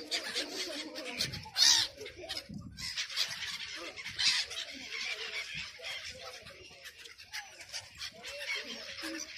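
A flock of gulls calling and squawking, many short overlapping calls, with a louder sharp call about two seconds in.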